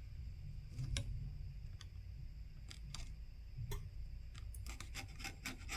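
A scraper scraping leftover adhesive and glass from the edge of a phone's plastic frame: scattered short scratches and clicks that come faster near the end.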